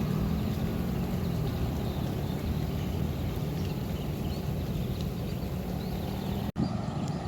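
Jet airliner engines rumbling steadily, heavy in the low end. The sound drops out for an instant near the end.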